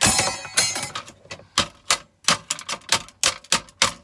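A hammer tapping in a quick, uneven run of sharp metallic knocks, about a dozen in all, to knock a small coil component off a circuit board so it can be broken open for its copper.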